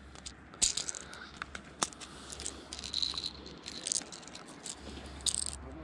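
Rummaging in a fishing tackle bag: scattered small clicks and rattles of plastic tackle boxes and tiny split-shot sinkers being picked out and handled.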